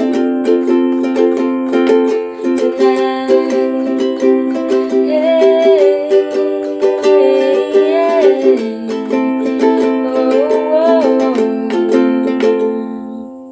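Ukulele strummed through a C, G, A minor, F chord progression in a down-down-up-up-down-up pattern, with a woman singing a wordless 'hey-ay' vocal line over it. The strumming fades out near the end.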